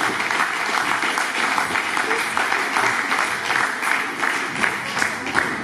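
Audience applauding: many hands clapping in a dense, steady patter, with some voices mixed in.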